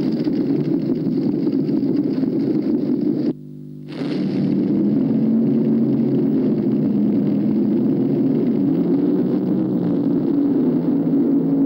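Vehicle engine running steadily, its low hum wavering slightly in pitch, heard through the thin sound of old cine film. The sound briefly drops out a little over three seconds in.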